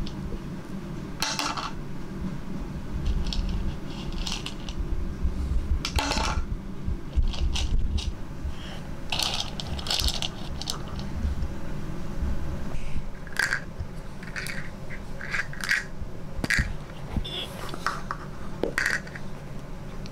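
Dry fusilli pasta rattling and clicking in a wooden bowl as a toddler's hand stirs and scoops through it, in short irregular clatters throughout.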